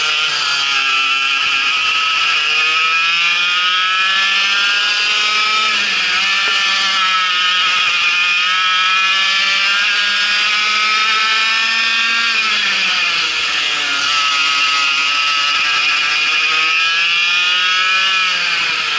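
Vortex MiniRok 60 cc two-stroke kart engine at racing revs, heard on board at close range. Its pitch climbs as it accelerates, holds high, drops about thirteen seconds in when the throttle comes off for a corner, then climbs again and falls off once more near the end.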